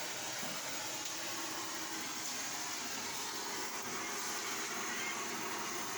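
Steady, even hissing.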